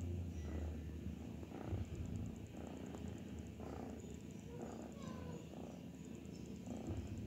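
Domestic cat purring, a low rumble that pulses about once a second.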